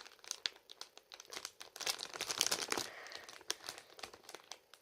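A squishy toy's packaging crinkling and crackling as it is handled and turned over, in irregular bursts that are busiest in the middle.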